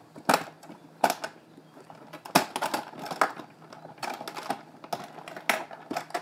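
A series of sharp, irregular clicks and knocks from a trombone case being handled, with its parts and buckles clacking.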